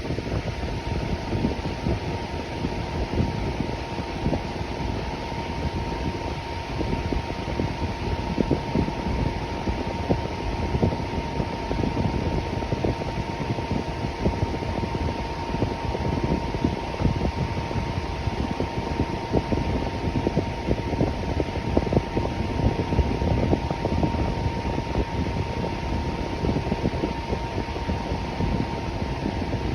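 Electric fan running steadily: an even rush of moving air with a thin, constant whine over it.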